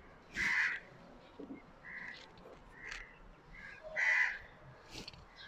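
Crows cawing, two loud harsh caws about half a second and four seconds in, with softer calls between them.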